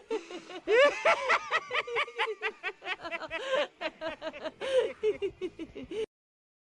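Chucky's laugh: a rapid run of short "heh-heh" laughs, the voice bending up and down in pitch, cutting off abruptly near the end.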